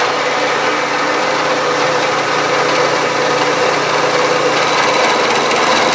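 Bridgeport milling machine with a 3/4-inch end mill taking a light finishing pass along a metal block: a loud, steady cutting noise with a steady hum in it.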